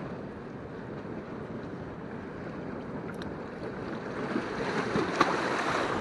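Sea surf washing against shoreline rocks, with wind buffeting the microphone, growing louder over the last couple of seconds. A sharp tap sounds about five seconds in.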